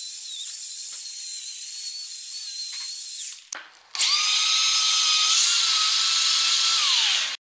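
Corded 220 V household electric drill spinning a foam polishing pad against a clouded plastic car headlight lens, polishing it back to clear. It runs in two stretches: a steady high whine that stops a little after three seconds, then after a short pause a louder run with a lower whine whose pitch falls as it winds down near the end.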